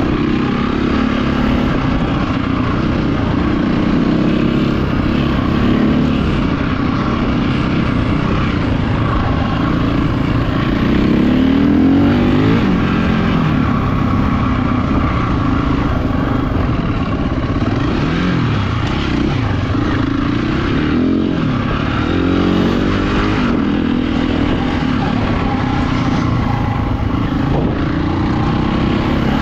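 Enduro motorcycle engine running continuously, its revs rising and falling with the throttle, most clearly a little before the middle and again about two-thirds through.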